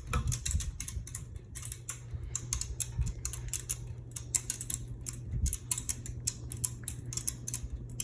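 Minka Aire Carmel ceiling fan running on medium speed: a steady motor hum with a quick, uneven clicking or ticking, several clicks a second.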